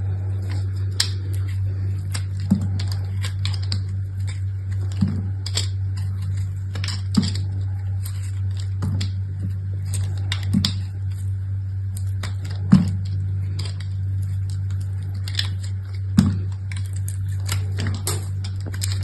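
Soap packaging being handled and unwrapped: irregular clicks, crackles and soft taps, with a soft thud every couple of seconds, over a steady low hum.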